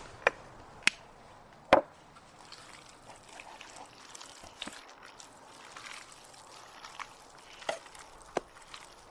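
Raw bison meat cubes being mixed by hand in a stainless steel tray: soft wet squelches and slaps of meat against the metal. Three sharp knocks come in the first two seconds.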